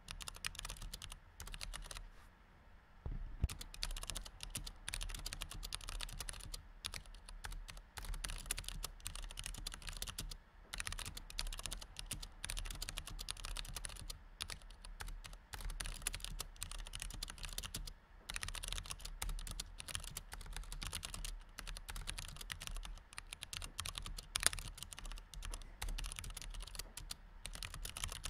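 Fingers typing continuously on a low-profile chiclet-key computer keyboard: a fast, irregular patter of soft key clicks, with a short pause about two to three seconds in and a few heavier keystrokes.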